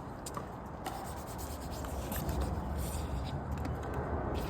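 Wind buffeting the microphone: a rough, low rumble that grows louder about two seconds in, with a few faint ticks mixed in.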